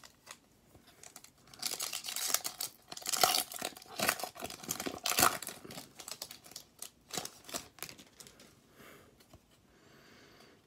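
Foil wrapper of a hockey card pack being torn open and crinkled. Dense crackling for about four seconds, then a few lighter rustles and clicks as the cards come out.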